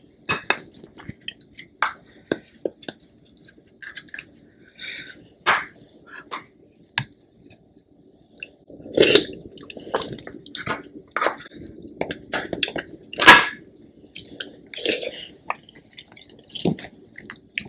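Close-miked eating sounds: a wooden spoon scraping and scooping crab fat out of a Dungeness crab's shell, with wet smacking and chewing. It comes as scattered short clicks and squelches, busiest in the second half, with the loudest about thirteen seconds in.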